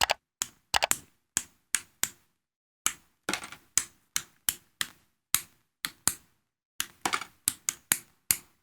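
Plastic keycaps being pulled one after another off the blue switch stems of a mechanical keyboard with a keycap puller, each coming free with a short, sharp click. The clicks come irregularly, two or three a second, sometimes in quick pairs.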